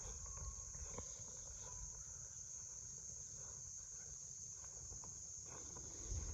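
Insects, likely crickets, keep up a steady high-pitched chorus, with a faint low rumble underneath.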